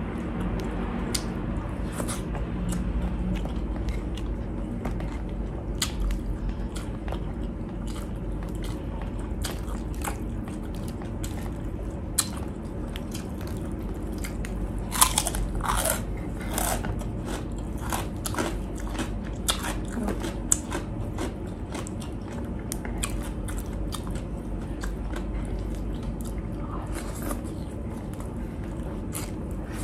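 Steady chewing of a mouthful of rice and vegetables, with a run of sharp, loud crunches about halfway through as a piece of chicharon (deep-fried pork rind) is bitten and chewed.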